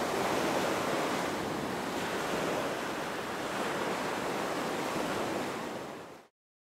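Small waves breaking and washing up on a sandy beach, a steady surf hiss that fades away and cuts to silence near the end.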